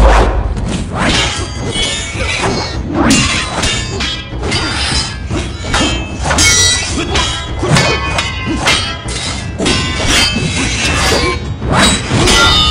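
Film sword-fight sound effects: a rapid run of metal blade clashes with short metallic rings, along with swishes and thuds, over a music score.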